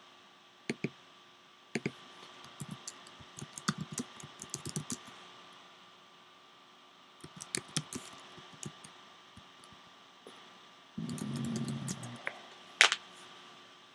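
Computer keyboard being typed on: two short bursts of key clicks with a few single clicks between. Near the end comes a brief low noise, then one sharp, louder click.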